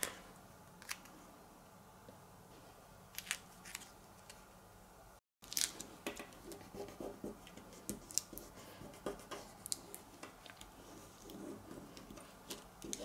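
Faint rustling and small clicks of vinyl on transfer tape being laid over an acrylic keychain and pressed down with fingertips, sparse at first and busier after about five seconds.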